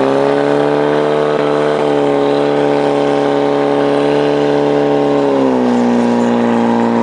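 Portable fire pump engine running flat out at high revs, feeding water to the hose lines, with one steady engine note that drops slightly about five and a half seconds in.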